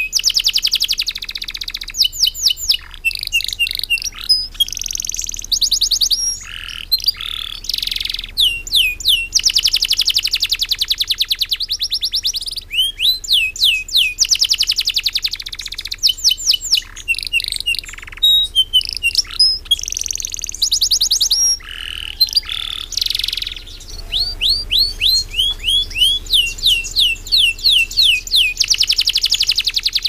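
Domestic canary in full song, with long unbroken phrases. Fast runs of repeated falling whistles, several a second, alternate with buzzy rolls, and there are only short breaks between phrases.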